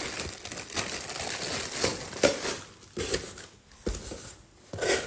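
Plastic packaging crinkling and rustling as it is handled, with scattered clicks and knocks.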